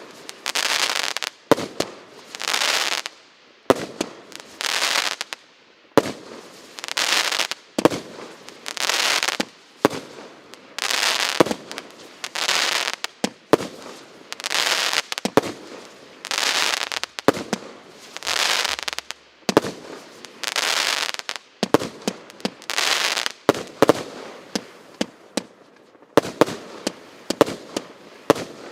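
Firework battery (cake) firing shot after shot, about one every one and a half to two seconds: each a sharp launch thump followed by about a second of hissing crackle. Near the end the shots come shorter and quicker.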